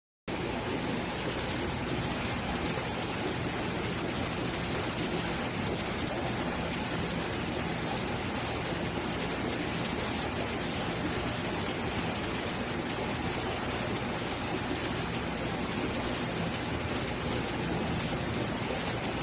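Steady rushing noise of water running in an aquarium, cutting out for a moment right at the start.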